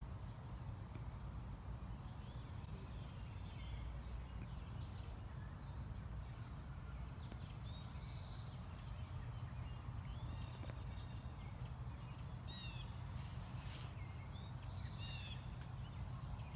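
Wild birds chirping and calling at intervals, many short whistled notes, over a steady low rumble.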